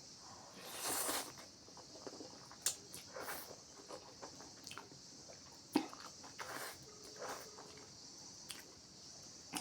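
A person eating: chewing and biting sounds with scattered short clicks and crunches, one sharp click a little before the middle.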